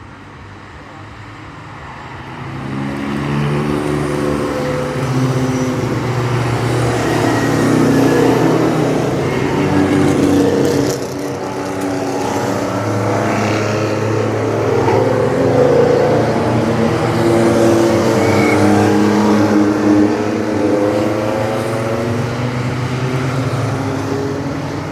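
Several classic racing cars' engines going past on the circuit, loud from about two seconds in. Their overlapping engine notes rise and fall as they pass.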